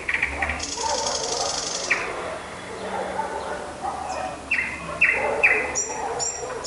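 A songbird singing at night: a varied run of chirps and short falling whistles, with a fast high trill about a second in and sharp high notes near the end.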